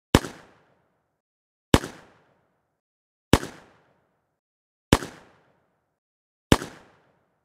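Handgun shot repeated five times, about one every second and a half, each a single sharp report with a short fading tail and dead silence between shots.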